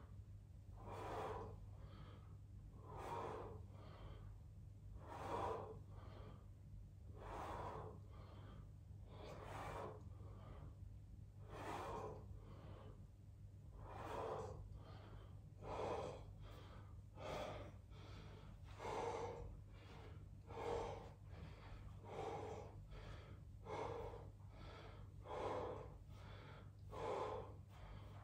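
A man breathing hard and rhythmically from the exertion of repeated squats, one heavy breath about every two seconds, coming a little quicker towards the end, over a steady low hum.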